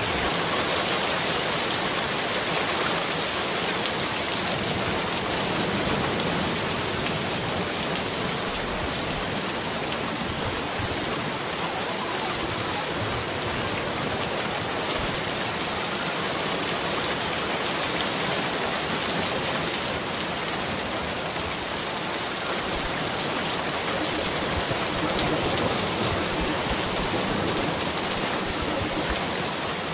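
Steady recorded rain, an even hiss of rainfall without any change. This is the masking layer laid over a subliminal affirmations track.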